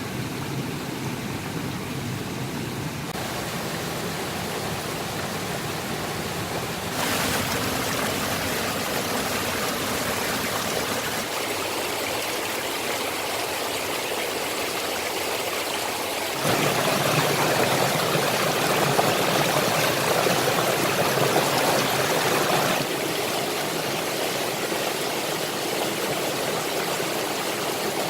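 Waterfall rushing: a steady wash of falling water that jumps louder and fuller a few times, most of all for several seconds past the middle, then drops back.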